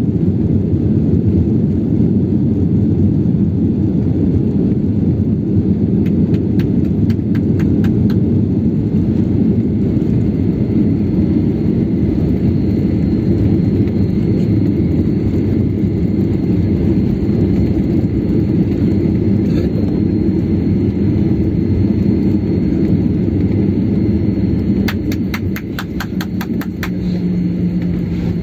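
Jet airliner rolling out on the runway after landing, heard from inside the cabin: a loud, steady, deep rumble from the wheels on the runway and the engines. Twice there is a short run of rapid ticking, and near the end the rumble eases as the aircraft slows, leaving a steady hum.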